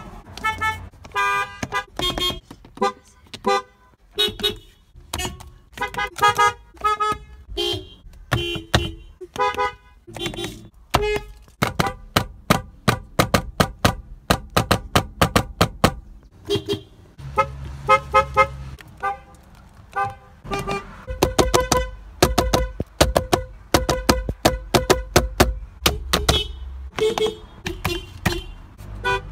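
Car horns honking over and over, mostly in short toots with a few longer held blasts. The horns differ in pitch from one to the next. In the middle there is a quick run of rapid toots, about five a second.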